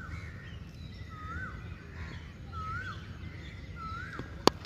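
A bird repeating a short rising-and-falling whistled call about once a second over steady outdoor background noise, with a single sharp crack near the end.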